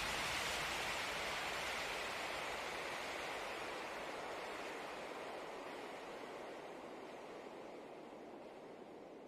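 Steady rushing wind noise on the camera microphone while riding a mountain bike downhill, fading slowly away.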